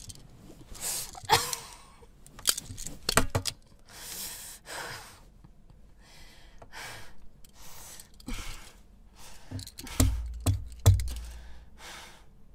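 A woman panting, gasping and straining as she struggles against her restraints, with a few sharp clicks early on and two dull thumps about ten seconds in.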